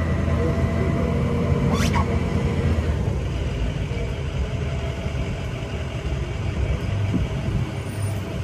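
Safari tram running along its route, a steady low engine rumble throughout, with one brief sharp high-pitched sound about two seconds in.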